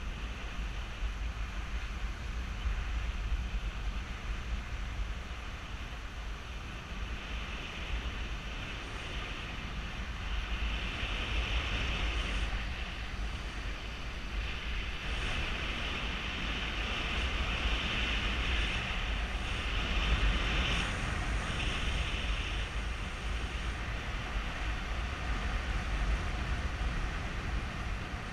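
Wind buffeting a GoPro Hero3 camera's microphone during a paraglider flight: a constant low rumble with a hissing rush of airflow. The rush swells louder about eight seconds in and eases off again a few seconds before the end.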